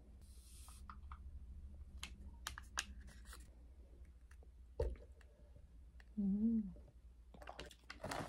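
Faint clicks and rustles of a plastic stick sachet of fibre powder being handled at a table, with a brief hiss near the start and a single thump about five seconds in. A short hummed "mm" comes about six seconds in.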